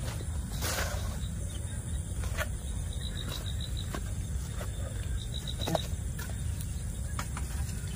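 Outdoor background: a steady low rumble with a few light knocks and rustles scattered through it, and a faint high insect-like trill.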